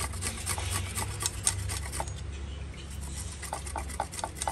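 Food being rubbed back and forth across a flat, round stainless-steel hand grater: a fast rasping of several strokes a second, which eases off in the middle and picks up again near the end. A steady low hum runs underneath.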